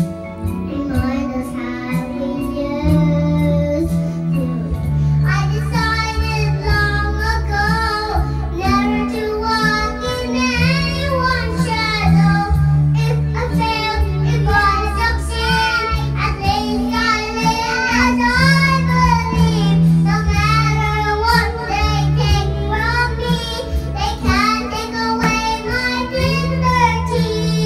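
A young girl singing into a karaoke microphone over a backing track with a steady, repeating bass line.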